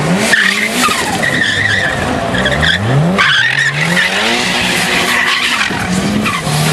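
Turbocharged Toyota AE86 Corolla's engine revving hard in a burnout, its rear tyres spinning and squealing on the tarmac. The revs climb and fall several times, with a sharp drop about three seconds in.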